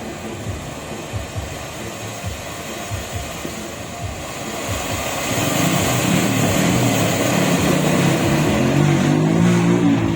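Distant fireworks thudding over street noise, then a car going by close, its engine and tyre noise swelling in the second half.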